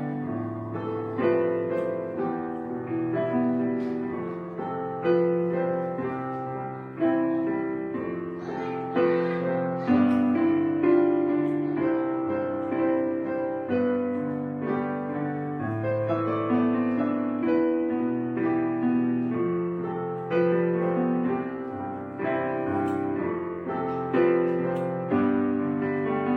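Background piano music: a calm, slow instrumental with sustained notes and chords.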